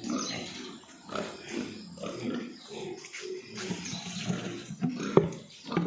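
Pigs grunting irregularly in a concrete pen, with a sharp knock about five seconds in.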